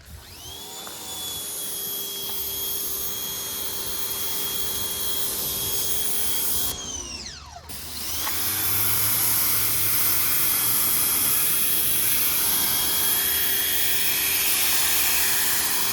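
Pressure washer running, its motor whining over the hiss of the water spray. About seven seconds in the whine glides down and stops as the trigger is let go, then winds back up a second later and runs on with the spray.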